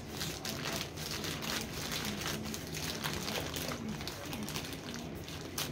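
Plastic mailer bag rustling and crinkling as hands pull and tear it open, a run of quick irregular crackles with one sharper crackle near the end.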